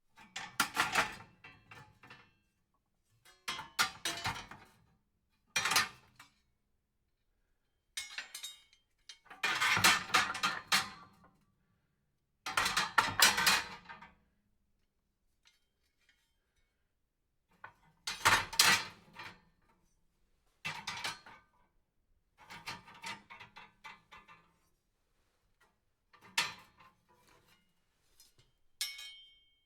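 Metal fireplace tools being handled: about a dozen separate bouts of clanking and jingling as the iron pieces knock against each other and their stand, each lasting up to about two seconds, with pauses between them.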